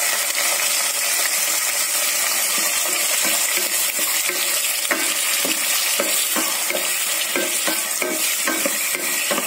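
Onions, tomatoes and curry leaves sizzling in hot oil in a metal pot as they are sautéed for the kuzhambu's tempering. A steady sizzle throughout, with a wooden spatula stirring and scraping the pot in repeated strokes, about two or three a second, from a couple of seconds in.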